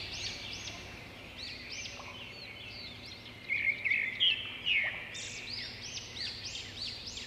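Small birds chirping, many quick high chirps over one another with no pause, and a few louder calls about halfway through.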